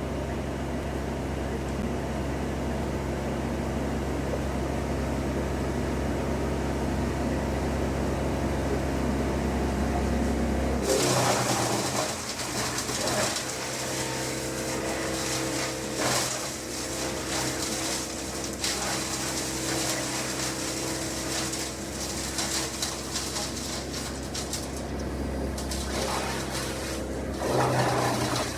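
Engine-driven machinery running steadily with a low hum. About eleven seconds in it changes suddenly to a harsher, hissier machine sound with a steady mid-pitched drone underneath.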